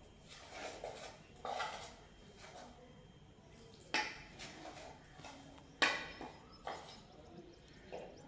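A spoon scraping and clinking in a bowl as gram-flour batter is stirred while water is added a little at a time, with sharper clinks about four and six seconds in.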